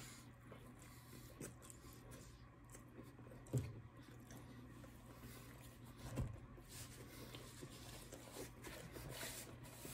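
Faint chewing of a mouthful of pizza crust, with two soft thumps, one about three and a half seconds in and one about six seconds in.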